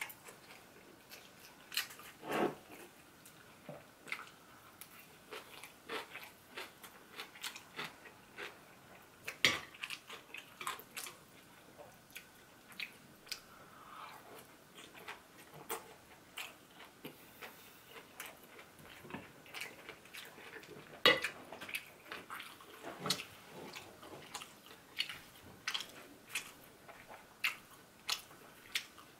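Close-up sounds of biting and chewing sweet-and-sour fried pork (tangsuyuk), with many short wet clicks and crackles and occasional sharper clicks, the loudest about a third of the way in and again about two-thirds in.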